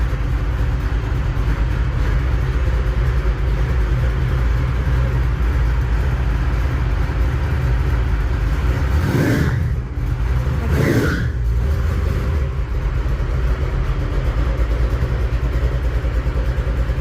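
Chevy 3100 pickup's engine running steadily, rising briefly twice a little past halfway as it is revved.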